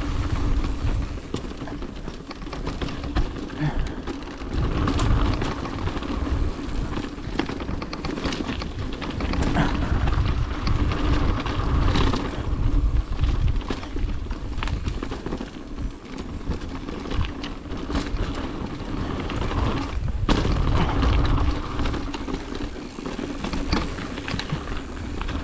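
Mountain bike rolling along a dirt trail: wind rumble buffets the microphone while the bike clatters and rattles over the ground with many small knocks.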